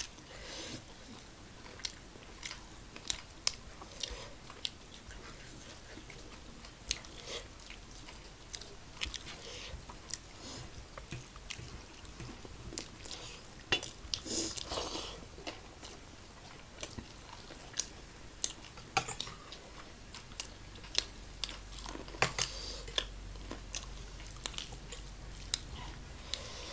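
Close-up chewing and crunching of crisp fried food, with many short, sharp clicks scattered throughout.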